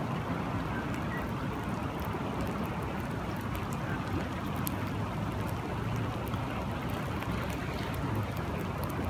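Steady rain and running water: an even rushing noise with scattered faint ticks of drops.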